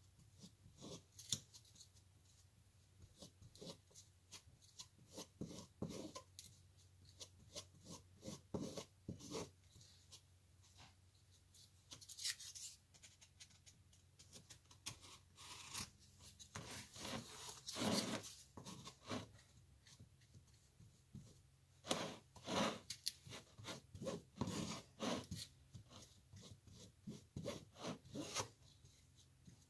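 Wooden stir stick scraping and smearing body filler being mixed up on the face of a pallet-wood disc: a run of short, irregular scrapes, busiest about halfway through and again in the last third.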